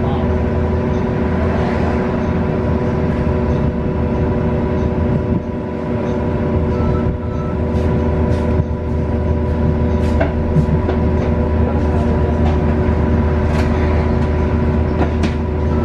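Cabin sound of a 2019 Nova Bus LFS CNG bus, its Cummins L9N natural-gas inline-six and Voith transmission running at a steady pace: a constant hum with several steady tones. Scattered light clicks and rattles of the cabin come through over it.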